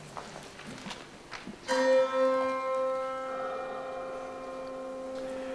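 A few faint clicks, then about a second and a half in a single sudden struck musical note. It rings on with many higher tones inside it and slowly fades.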